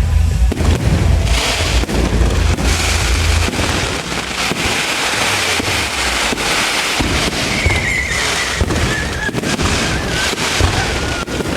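Fireworks going off: dense crackling and hissing with many sharp pops, over a heavy low rumble for the first three seconds or so. From about two-thirds of the way in, a thin wavering high tone runs over the crackle.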